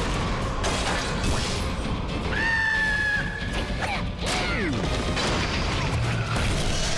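Animated-cartoon soundtrack: busy background music with slapstick sound effects. A high squeal is held for about a second near the middle, followed by a quick falling glide.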